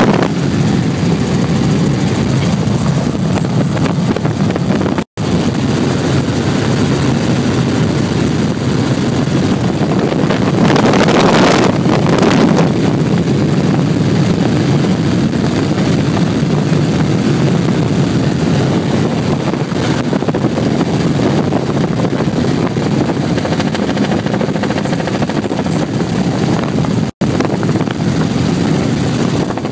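Steady drone of a helicopter's rotor and engine, heard from inside the cabin. The sound cuts out for an instant twice.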